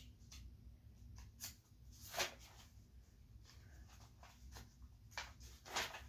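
Quiet room with a low steady hum and a handful of faint, brief rustles and taps, the clearest about two seconds in and again near the end.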